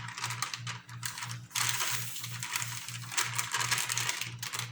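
Close-up mouth sounds of eating seafood: chewing and wet lip smacking on the last bite, a run of quick clicks that grows denser and louder about a second and a half in.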